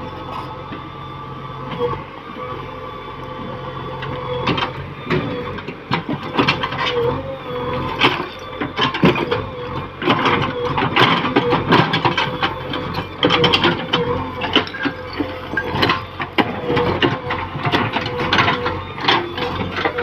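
Excavator engine running under load while the bucket scrapes and knocks against stones. From about four seconds in there is a dense run of irregular clanks and rattles.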